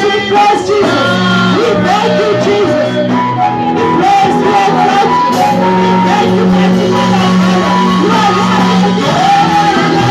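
Live worship music with loud singing over held bass notes, echoing in a large hall.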